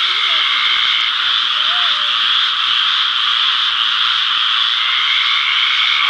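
A dense, steady, high-pitched chorus of many frogs calling together. A thinner steady tone in it drops out about a second in and comes back near the end.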